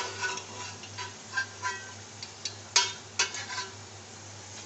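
A metal slotted spoon clinking and scraping against aluminium cooking pots as boiled beef is lifted out of the yakhni stock into the onion and chilli masala. There is a string of short ringing clinks, the loudest two about three seconds in, over a low steady hum.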